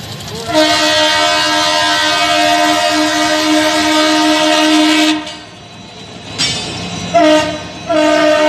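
WDP-4B diesel locomotive's horn sounding: one long blast of about four and a half seconds, then after a short break a brief toot, and another long blast that starts near the end, as the locomotive passes close by.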